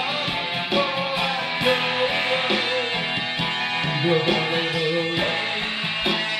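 Acoustic guitar strummed in a steady rhythm, with a man singing a melody over it.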